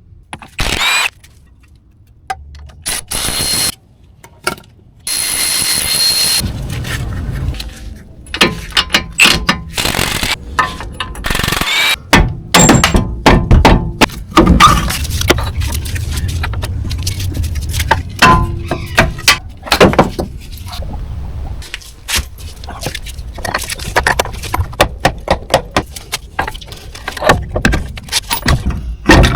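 Mechanic's work on a car's front CV axle: metal clanks, thunks, scrapes and sharp clicks from tools and parts. The sounds come in short stretches that start and stop abruptly.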